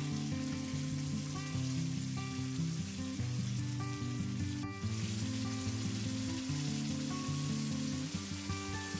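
Chilli-paste gravy sizzling and bubbling in a wok as it is stirred with a wooden spatula, cooking down after tamarind water has gone in until the oil separates. Background music plays over it.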